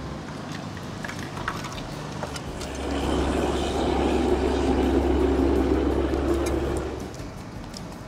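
A motor engine running past: a steady low hum that swells about three seconds in and fades away near seven seconds. Light clicks of a spoon and fork on a plate.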